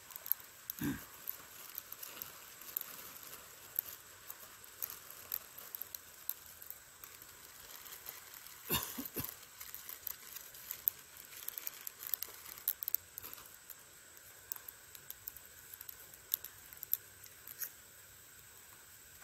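Sparse, irregular small crackles and rustles from dry tinder being handled and scraped for a fire, with a soft thump about one second in and another about nine seconds in.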